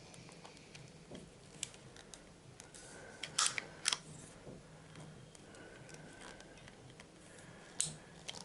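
A few sharp clicks and clacks of a metal replica pistol being handled, the two loudest close together about three and a half seconds in and another near the end.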